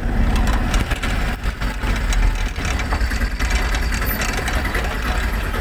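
A vehicle engine idling: a steady low rumble, with scattered knocks and handling noise over it.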